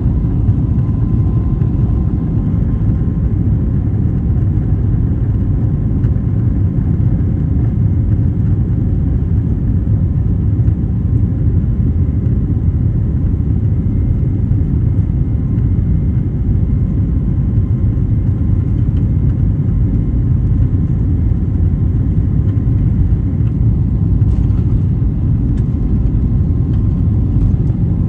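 Steady low rumble of a jet airliner's engines and cabin noise while taxiing, heard from inside the passenger cabin, with a faint steady tone above it.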